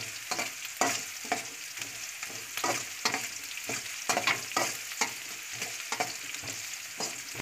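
Sliced onions sizzling in hot oil in a metal wok, frying until they turn reddish. A metal spatula stirs them, scraping and clinking against the pan several times a second over the steady hiss.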